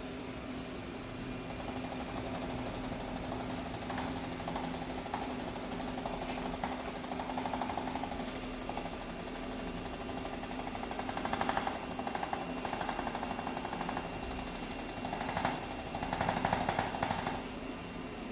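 Handheld electric percussion instrument hammering rapidly against the neck to mobilise restricted cervical joints. The pulsing is fast and continuous, and it grows louder a few times, about two-thirds of the way in and again near the end.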